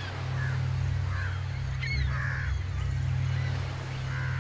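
Crows cawing: several short harsh calls, the loudest about two seconds in, over a steady low hum.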